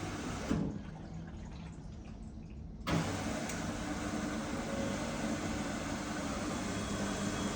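Washing machine running on a quick-wash cycle: a steady hum with a rushing, watery noise. A knock about half a second in and another near three seconds, with the hiss dropping out between them.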